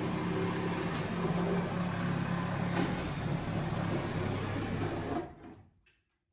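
Reciprocating saw running steadily as it cuts through wooden ceiling boards, then dying away about five seconds in.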